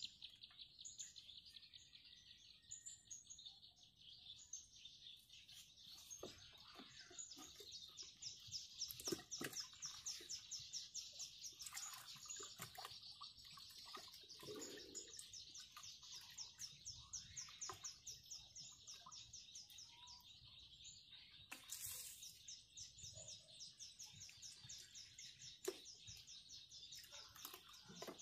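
Faint, steady high-pitched chirping from wildlife, many chirps a second, with a few soft knocks and rustles.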